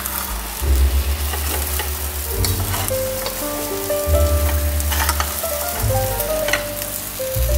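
Egg and tomato omelette sizzling in olive oil in a non-stick frying pan, with a spatula scraping the pan a few times. Background music with a steady bass line plays underneath.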